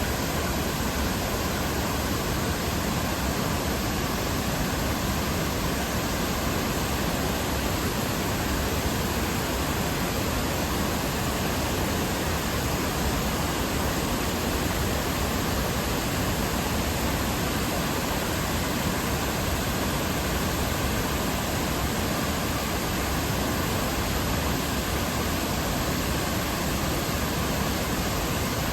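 Fukiware Falls, a broad waterfall, pouring steadily: an even, unchanging rush of water.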